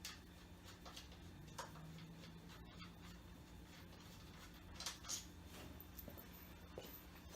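Near silence: a low steady hum with a few faint scattered clicks and light knocks, the loudest a pair about five seconds in.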